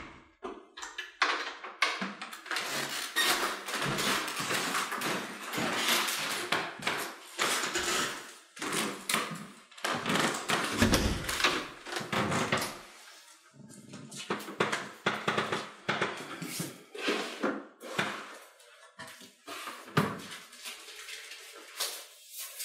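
Household movement sounds: a door, footsteps, rustling and objects being handled. The noise is dense in the first half and turns into scattered knocks and clicks later.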